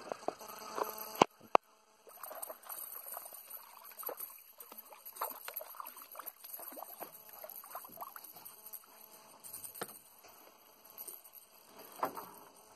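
Hooked pejerrey splashing and thrashing at the water surface as it is reeled to the boat, an irregular wet patter. Two sharp knocks about a second in are the loudest sounds.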